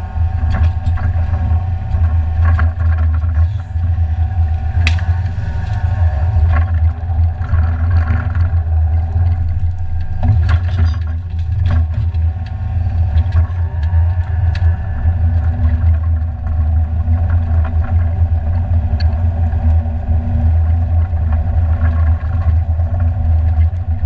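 New Holland mini excavator's diesel engine running steadily, close to the microphone, as the timber grab works through cut brush, with scattered cracks and snaps of branches.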